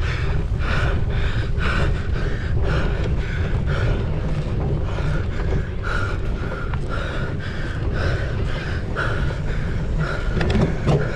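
A cyclocross racer panting hard under race effort, about two breaths a second, over steady wind rumble on the microphone.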